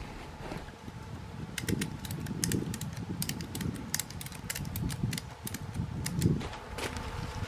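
Handling noise as a boar carcass is strapped up to a tree trunk: rustling and knocks, with a run of sharp clicks from about one and a half seconds in to past the middle as the strap is worked tight. A faint steady buzz of flies carries on underneath.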